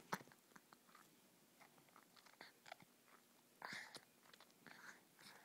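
Faint sucking and clicking mouth sounds of a baby feeding from a milk bottle, scattered small clicks over near silence.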